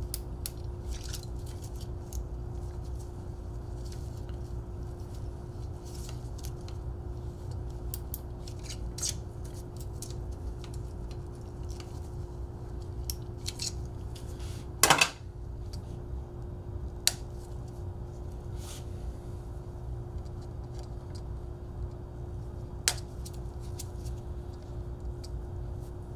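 Nylon zip ties being worked on a bike frame: scattered small clicks and snips as the ties are pulled tight and their tails cut, with one louder snap about halfway through.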